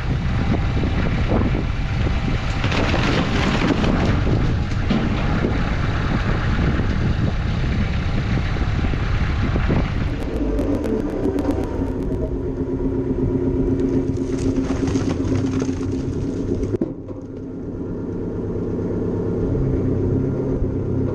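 Tractor engine running under load, dense and noisy at first, then a steadier hum after an abrupt change about ten seconds in, with another sudden dip near seventeen seconds.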